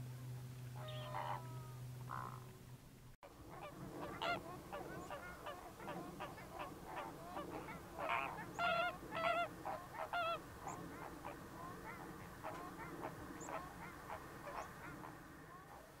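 A flock of greater flamingos calling: dense, overlapping goose-like honks. For the first three seconds there is instead a steady low hum with a few scattered calls, which ends at a sudden cut.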